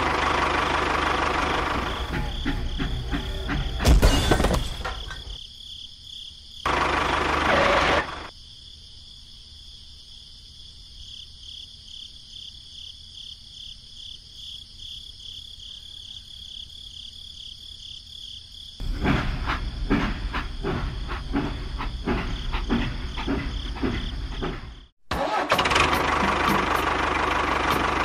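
A small motor running, cut into several loud stretches, with a sharp knock about four seconds in. A quieter stretch in the middle holds only a faint steady hum, and the sound drops out briefly near the end.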